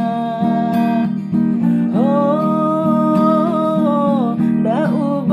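Acoustic guitar strummed in a steady rhythm, with a voice holding one long note through the middle that bends up and down just before it ends.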